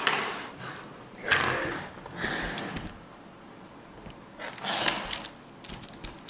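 Handling noise: a few separate rustles and knocks, the loudest about a second in, as the camera is moved and set level again and a mounted skunk is shifted on the table.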